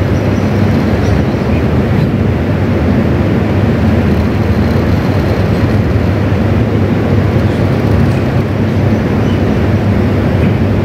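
Steady, even low rumbling background noise with no voice, the room and sound-system noise of a large mosque during the silent part of the prayer.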